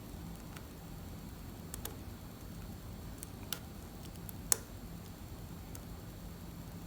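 Small, irregular metallic clicks and ticks of a lock pick working the pins inside a 30 mm Guard padlock under light tension, about eight in all, the sharpest about four and a half seconds in. A steady low hum runs underneath.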